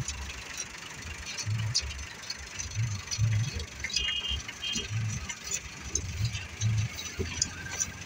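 Tractor engine running at road works, with scattered sharp clicks and scrapes, and a short two-note chirp about four seconds in.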